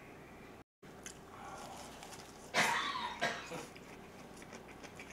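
A man eating a big mouthful of lettuce-wrapped spicy pork, with a loud throaty vocal sound from the eater about two and a half seconds in and a smaller one just after. The audio cuts out completely for a split second near the start.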